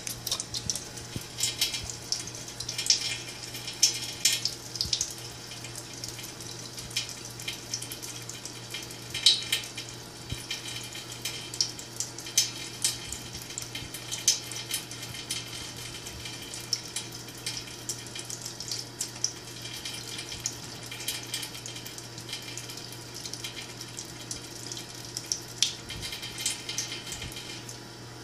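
Kitchen sink faucet running a thin stream of water, splattering and splashing irregularly as a cat pokes at the stream and drinks from it.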